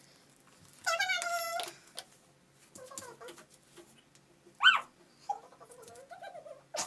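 High-pitched, cat-like vocal calls from a girl: a drawn-out mewing call about a second in, a short sharp rising squeal near the middle, and a lower wavering call after it.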